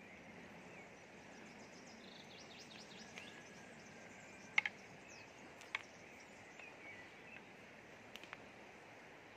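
Faint outdoor ambience: the steady rush of a flowing river, with small birds chirping and a few sharp clicks, the loudest about halfway through.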